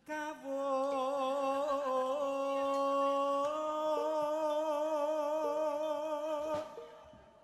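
A single voice singing one long wavering note in Javanese jathilan style, which steps up in pitch about halfway and fades out near the end, with a few short, faint instrument tones beneath it.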